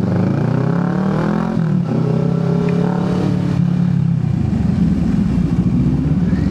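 Motorcycle engine under way: it revs up over the first second and a half, dips briefly, holds a steady pitch, then drops off about four seconds in as the rider slows.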